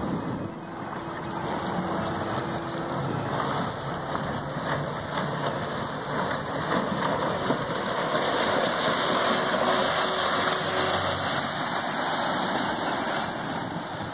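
Boats running at speed on open water: a steady rush of water and wind with a low outboard engine drone underneath, growing louder about halfway through as an outboard-powered aluminium boat closes in.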